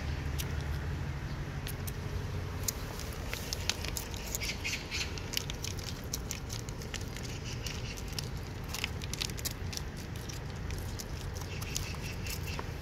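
Cats eating wet cat food and scattered kibble close up: irregular, rapid wet chewing, licking and smacking clicks.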